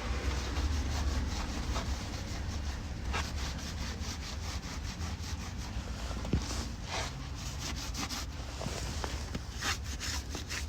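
Repeated irregular scraping and rubbing strokes as old silicone sealant and oil residue are cleaned off a differential's metal gasket surface, over a steady low hum.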